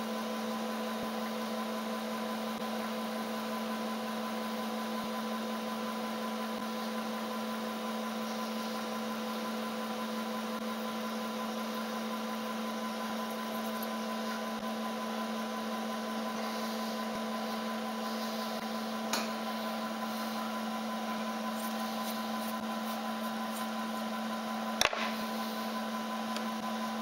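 Milling machine spindle running steadily with a steady hum while a 5 mm carbide end mill slowly bores out a sheared cam chain tensioner bolt. There is a faint click about two-thirds of the way in and a sharp click near the end.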